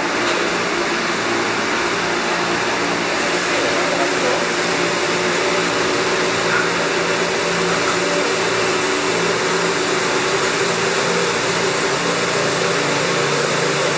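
Haas TM-2 CNC toolroom mill running under power: a steady whirring machine noise with a hum of several low tones. About three seconds in, the high hiss steps up.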